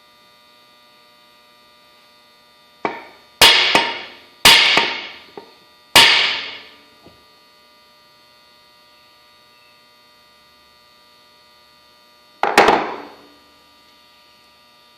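Five sharp knocks or clanks, each ringing out briefly: four close together a few seconds in and one more near the end. Under them runs a steady electrical hum.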